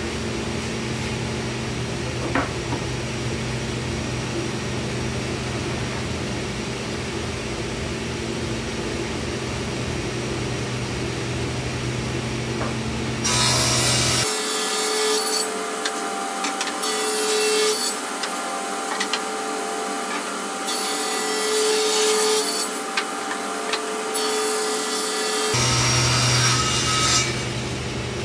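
Sliding table saw running free with a steady hum, then, from about halfway in, its blade cutting through plywood in several pushes: a loud, high noise that rises and falls. The saw runs free again just before the end.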